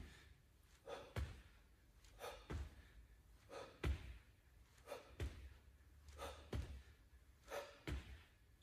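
A person exercising in a rhythm, breathing out hard with each repetition, each breath followed by a soft low thump, about six times, roughly one every 1.3 seconds.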